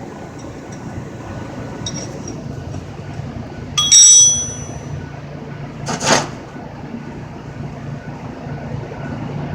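A single sharp metallic clink about four seconds in, ringing briefly at a few high pitches, with a short hissing or scraping noise about two seconds later, over a steady low hum.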